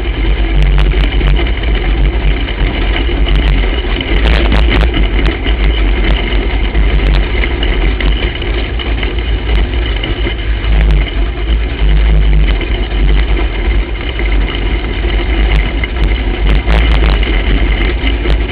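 Racing kart's engine running at low speed, heard close up from the kart itself, with a heavy low rumble and occasional short knocks.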